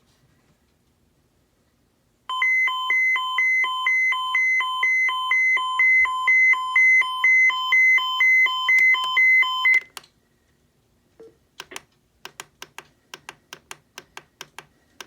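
Electronic alert tone of an emergency-alert tornado warning, switching back and forth between two pitches about three times a second for roughly seven seconds, then cutting off sharply. A run of quieter, evenly spaced clicks, about three a second, follows near the end.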